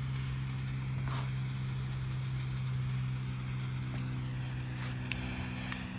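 Steady low hum, with a few faint clicks about a second in and near the end.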